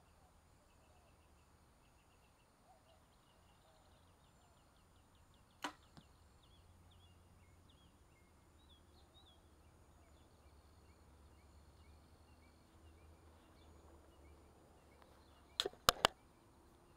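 A compound bow shot with a thumb release about six seconds in: one sharp snap of the string, then a fainter knock about a third of a second later. Birds chirp faintly, and near the end come three sharp knocks in quick succession, the loudest sounds.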